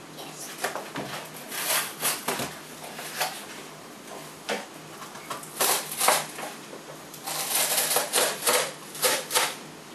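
Cardboard shipping box being opened by hand: irregular bursts of tearing and scraping of cardboard and packing tape, busiest over the last few seconds.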